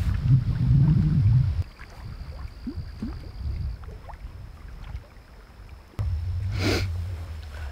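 Wind buffeting the microphone with a low rumble that cuts off suddenly about a second and a half in, leaving quieter outdoor air with a few faint chirps. The wind rumble returns near the end, with one short sharp sniff through a nose running in the cold wind.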